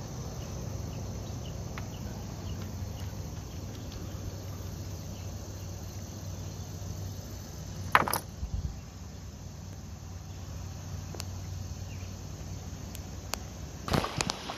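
Steady chorus of chirping insects over a low rumble, broken by one sharp knock about 8 seconds in. Near the end, water splashes as a dog wades through a shallow river.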